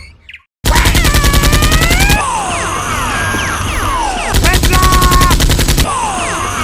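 Dubbed sound-effect machine-gun fire in two rapid bursts, the first starting about half a second in after a brief silence and the second just past the middle, with repeated falling whistling zips in between.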